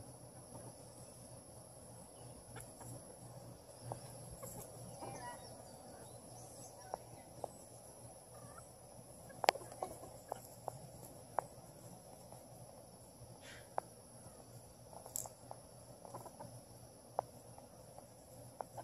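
Chickens feeding from a person's hand: faint, scattered sharp pecking taps and an occasional soft cluck, over a steady high drone of insects.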